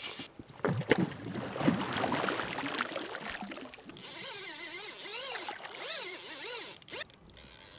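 Fly line being stripped in with fast pulls, hissing through the rod guides and over the fingers in a run of rising and falling whines, one per pull. Before that come a few knocks and rustles of handling, the loudest sounds here.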